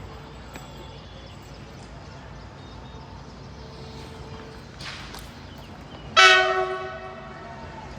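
A train horn sounds one loud blast about six seconds in and fades away over about a second, over a steady background hum.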